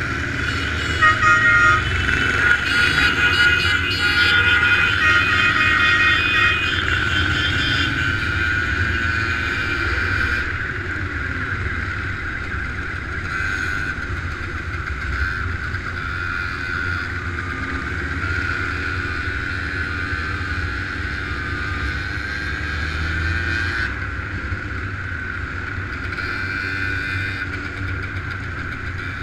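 Motorcycles running steadily in a group ride, heard from a moving bike, with horns honking repeatedly during the first several seconds.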